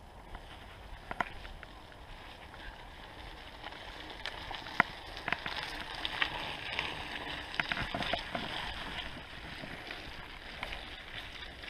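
Mountain unicycle tyres rolling down a wet gravel-and-dirt trail: a steady crunching hiss with scattered sharp clicks and knocks, getting louder about four seconds in.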